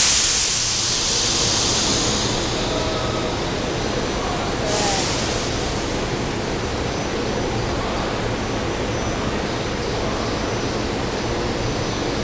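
Compressed air hissing from a SEPTA commuter train's pneumatic system: a sudden loud hiss that fades over about two seconds, then a second, shorter hiss about five seconds in, over the steady low hum of the standing railcars.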